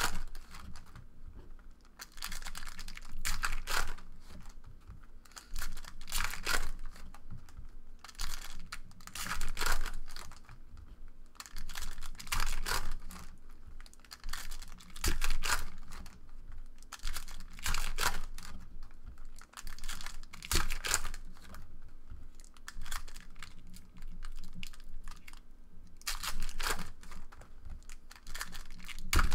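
Foil-wrapped Panini Prizm trading card packs being torn open by hand, their wrappers crinkling, with cards handled and stacked. It comes as short rustling bursts every second or two, with brief pauses between.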